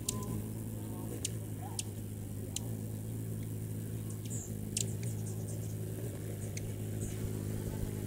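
A steady low motor hum runs throughout. Several short, high hummingbird chip notes are scattered through it.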